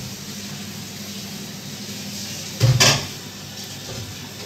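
A brief clatter of knocks and thuds about two and a half seconds in, from handling things at a kitchen counter, over a steady low hum.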